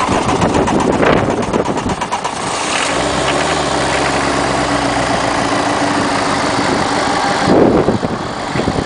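Peugeot 306's 1.9-litre turbo diesel engine running in the engine bay, settling into a steady idle about three seconds in. There is a brief louder burst near the end.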